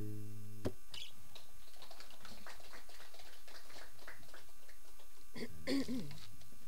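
Acoustic guitar's final chord ringing, then muted with a click under a second in. Paper sheets rustle faintly as they are turned, and a brief vocal sound comes near the end.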